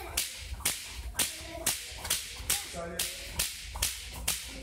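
Sharp cracks in an even beat, about two a second, with a man's shout of "sale" near the end.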